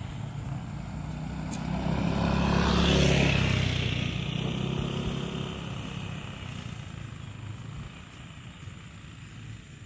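A motor scooter passing close by: its engine grows louder over the first three seconds, peaks, then fades away.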